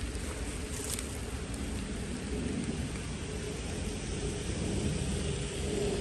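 Steady light rain, a little more than a drizzle, falling as an even hiss, with a low rumble on the microphone underneath.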